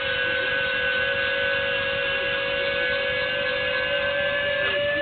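Retractable landing gear in a model aircraft wing running under test: a steady, high whine that holds one pitch, stepping slightly near the end.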